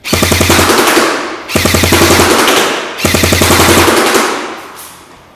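G&G CM16 Raider L airsoft electric gun firing three full-auto bursts of about ten rounds each, back to back, each lasting about a second and a half, with the motor and gearbox cycling under the rapid clatter. The rate of fire is low, as it is on a 7.4 volt LiPo battery.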